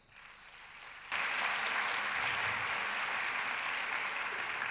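Audience applauding. It starts faintly, grows suddenly louder about a second in, then holds steady.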